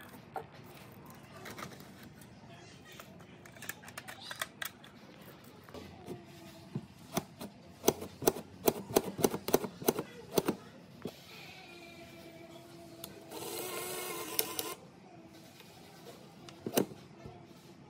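Metal clicks and rattles of a rusted VHS camcorder tape mechanism being worked apart by hand. The clicks come thick and fast in the middle, then there is a harsher rasp lasting about a second and a half, and one last sharp click near the end.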